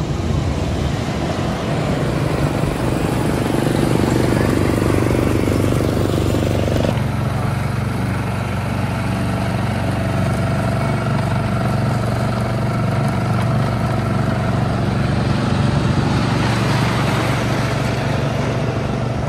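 Hoosier Hurricane's wooden roller coaster train running along its track: a steady low rumble whose tone shifts about seven seconds in.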